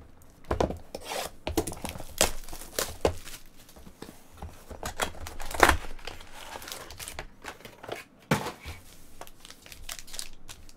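Cardboard trading-card box (Panini Elite Extra Edition baseball) being torn open by hand and its foil card packs crinkling as they are handled: a run of irregular rips and crackles, the loudest about halfway through.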